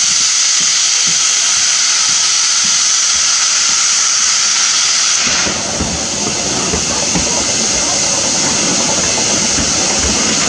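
Steam hissing loudly from two standing steam locomotives, an LNER B1 and an LMS Black 5. About five seconds in the high hiss eases into a coarser, lower rush of steam with some rumble underneath.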